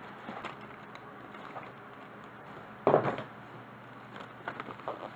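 Hands rummaging among objects on a shelf: light handling knocks and clicks, with one louder clatter about three seconds in and a few small knocks near the end.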